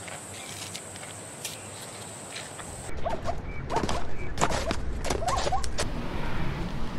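A faint steady hiss with a few light clicks, then from about three seconds in, outdoor sound with several short, bending calls from zebras.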